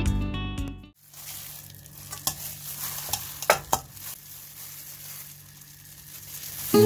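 Plastic-gloved hand squeezing thawed frozen spinach over a stainless steel mesh strainer, pressing the excess water out: wet squelching and plastic crinkling, with a few sharp crackles in the middle. Guitar music fades out at the start and comes back in at the very end.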